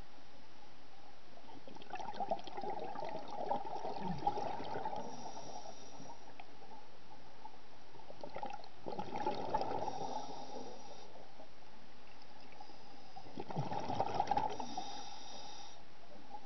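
Scuba diver breathing through a regulator underwater: three exhalations of gurgling bubbles, about five to six seconds apart, each with a short regulator hiss, over a steady faint hum.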